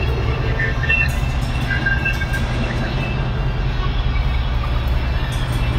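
Steady low rumble, with faint scattered higher sounds above it.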